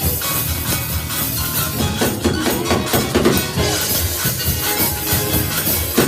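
Church praise music with percussion keeping a steady, upbeat beat.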